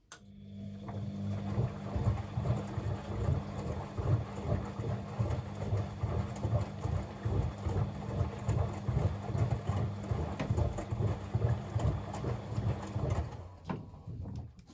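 Bosch WFCX 2460 front-loading washing machine turning its drum in the wash, the motor humming while the wet blanket tumbles and sloshes with regular low thuds. It starts suddenly and stops about a second before the end.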